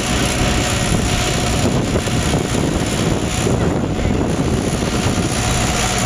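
Steady engine running as a hay baler is hauled away.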